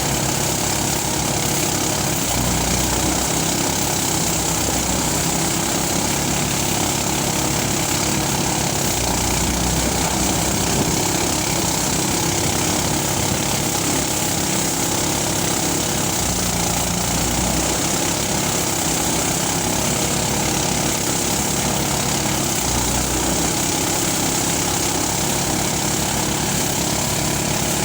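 Engine-driven rice threshing machine running steadily, its low rumble swelling in short spells every few seconds.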